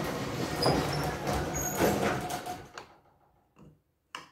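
Abrasive sanding pad rubbing chemical stripper into the finish of an oak door, strokes about once a second, stopping about three seconds in. A small knock follows near the end.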